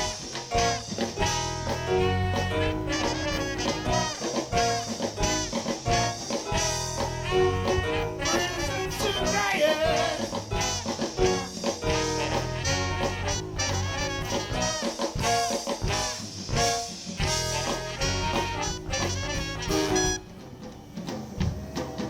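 Live swing-style band playing an instrumental passage, with a horn section of saxophone, trombone and trumpet over drums and bass. The music stops suddenly near the end.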